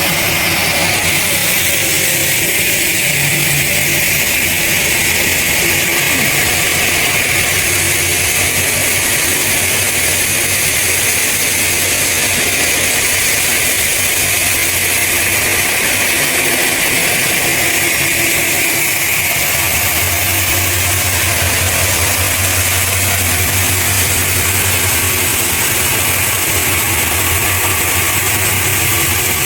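Heavy machinery running steadily, a continuous mechanical noise with a low hum that grows stronger about two-thirds of the way through.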